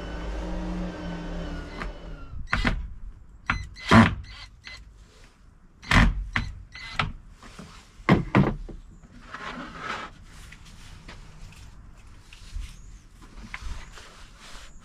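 A small motor whirs steadily and stops about two seconds in, followed by a series of sharp knocks and clatters, the loudest about four, six and eight seconds in, with lighter handling noises after.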